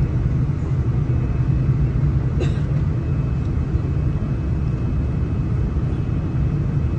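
Steady low rumble of a Boeing 787-9's engines and airflow heard inside the passenger cabin, with a faint steady whine over it. A brief click comes about two and a half seconds in.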